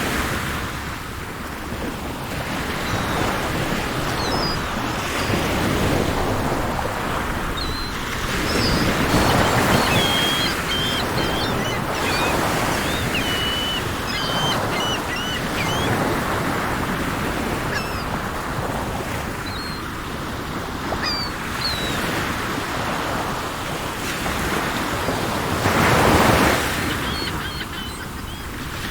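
Sea waves washing in slow swells, loudest about nine seconds in and again near the end, with birds chirping in short high notes through the middle.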